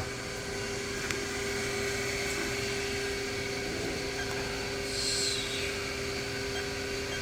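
1997 Haas VF-4 CNC vertical mill running with its spindle turning steadily at 3,000 RPM: an even mechanical hum with a constant tone.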